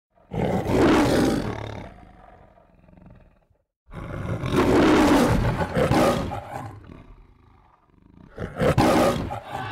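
Three loud, rough roars, each swelling and then fading out, the last one shorter.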